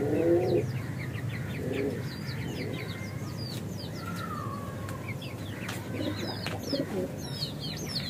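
Small birds chirp in quick, high, falling notes again and again. A pigeon coos briefly at the start and again about two seconds in. A low steady hum runs underneath.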